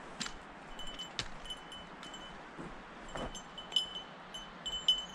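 Small bell on a guide dog's collar jingling in light, irregular tinkles as the dog trots about, getting busier and louder over the last couple of seconds. A few soft knocks sound underneath.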